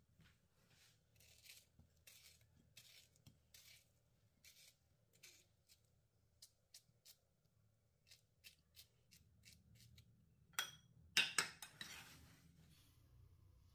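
Faint kitchen work: a run of short, soft cutting or scraping strokes, one or two a second, then a brief louder clatter near the end.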